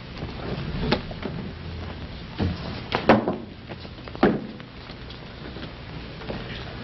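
A few scattered knocks and thumps, the loudest about three seconds in, over a steady low hum.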